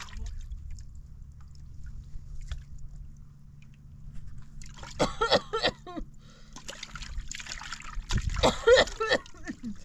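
Hands swishing and splashing water in a metal pot while washing food, in two louder bursts about five seconds in and again about eight seconds in.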